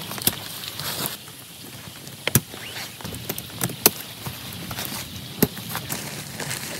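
Rain falling, with large drops landing in irregular sharp taps over a soft hiss.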